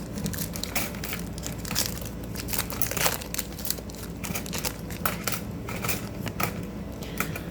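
Foil booster-pack wrapper crinkling and crackling in the hands, a dense run of irregular crackles.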